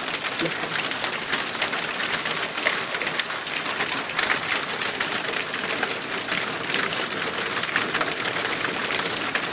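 Hail falling steadily, a dense patter of countless small hailstones striking the ground and nearby surfaces.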